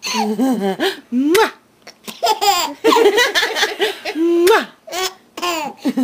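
A baby who has the hiccups giggles and laughs in repeated short bursts.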